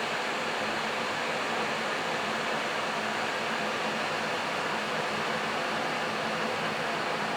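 Kettle heating water, giving a steady, even hiss that does not change.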